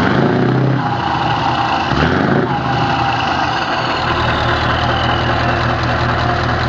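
Heavy truck's diesel engine heard at its twin side-exit exhaust pipes, idling with two short blips of the throttle, near the start and about two seconds in, then settling to a steady idle.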